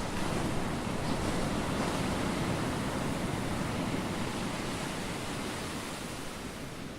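Steady rushing noise of sea water and wind, rising sharply at the start and easing slightly toward the end.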